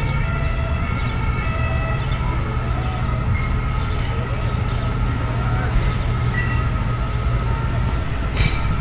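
Steady low hum with a few faint, held high tones above it, unchanging throughout.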